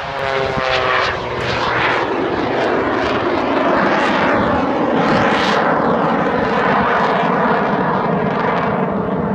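Aerobatic airplane flying overhead, its engine a loud, steady drone as it climbs.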